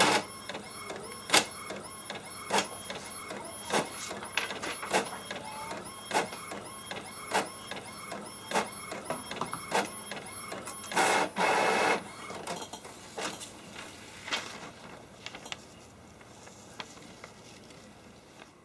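Epson WF-3540 inkjet printer printing a page: the print-head carriage shuttles back and forth with a high whine and a click about every second and a bit. A louder whirring stretch comes a little past halfway, then only quieter, scattered clicks as the printed sheet comes out.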